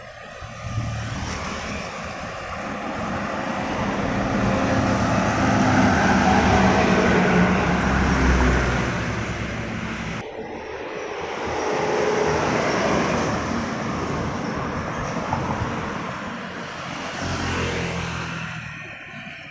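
Road traffic passing close by: a truck and other vehicles approach and go past, swelling to the loudest deep rumble about seven or eight seconds in, then fading. After a sudden cut, further vehicles pass more faintly, one around halfway through and another near the end.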